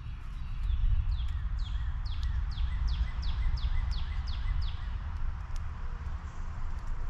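A songbird singing a run of about eleven quick whistled notes, each sliding down in pitch, about three a second, over a steady low rumble.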